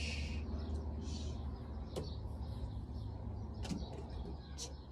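Steady low hum of room noise, with brief faint scratchy hiss and a few light clicks.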